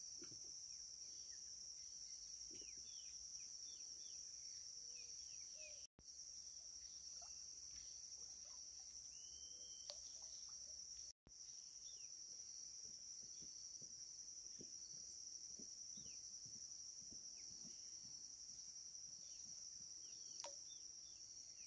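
Faint, steady, high-pitched chorus of insects at dusk. It cuts out for an instant twice, about six and eleven seconds in.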